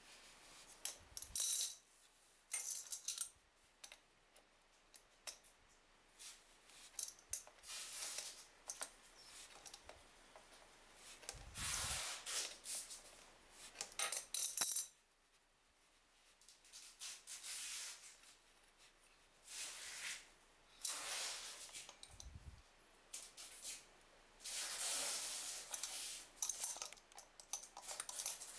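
Pliers clinking and scraping against metal and plastic plumbing fittings, in irregular short clicks and rasps, as the fitting of an inline filter at a toilet's angle valve is worked.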